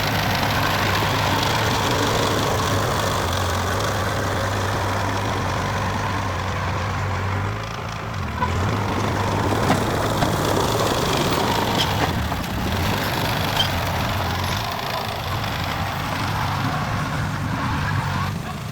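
Heavy construction machine's engine running steadily with a low hum. The engine note changes about eight seconds in, and a few sharp knocks follow.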